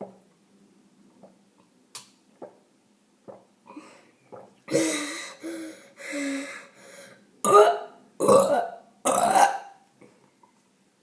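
A person burping over and over while drinking a large amount of drink, about six loud burps in a row through the middle of the clip. The first few are drawn out with a low, steady pitch and the last three are louder and rougher. A few faint short clicks come before them.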